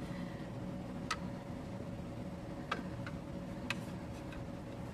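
Metal tongs clicking lightly against stainless-steel food bins and a plate as seasoned bracken is picked up: four short clicks, two of them close together, over a steady hum.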